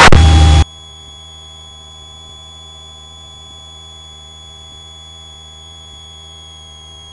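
Cockpit engine noise through the aircraft's intercom audio feed, which cuts off abruptly about half a second in. What remains is a faint, steady electrical hum with a thin high whine: the feed's own noise while no microphone is keyed.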